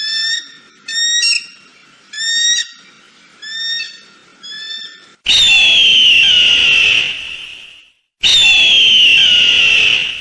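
Eagle calls: a run of about six short, rising chirps over the first five seconds, then two long, loud screams that slowly fall in pitch, each lasting about two and a half seconds.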